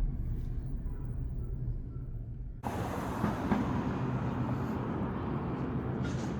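Low, steady road rumble inside a moving car, cut off abruptly about two and a half seconds in by a louder, even outdoor noise with no clear pitch.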